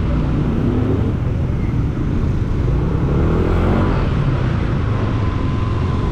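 Yamaha motor scooter riding through city traffic: its engine running under a steady low rumble, the engine note rising a couple of seconds in as it picks up speed.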